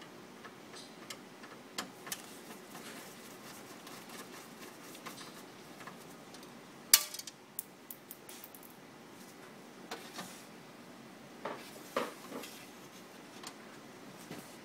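Scattered small metallic clicks and clinks of a screwdriver and metal parts being handled inside a copier while its drum unit is taken out, with one sharp, louder click about seven seconds in.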